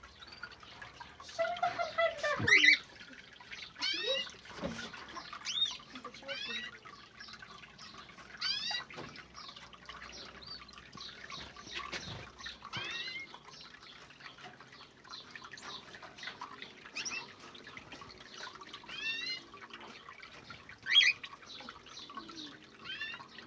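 Small caged birds giving short, repeated calls, each falling in pitch, every second or two over the faint trickle of a small water fountain in the cage.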